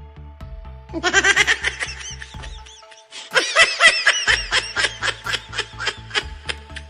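Background music with a steady beat, overlaid by two runs of quick, high-pitched laughter, the first about a second in and the second from about three seconds in.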